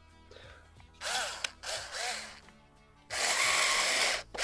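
Small cordless electric screwdriver tightening a screw. About a second in come two short bursts that speed up and slow down, then a steady run from about three seconds in that stops briefly near the end.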